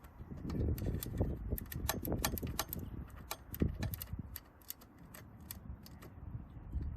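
Irregular sharp clicks and clinks of hand tools and small metal parts being handled, over an uneven low rumble.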